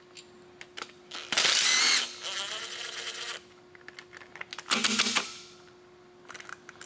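Cordless power driver running in two short bursts, one about a second and a half in and one near five seconds, backing out the 10 mm bolts of a timing chain tensioner. Light metallic clicks of the bolt and socket come between the bursts.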